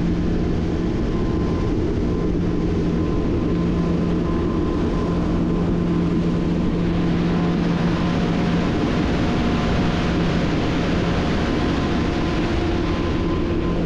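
Boat engine running steadily as the center-console boat cruises, with the rush of wind and water growing louder about halfway through.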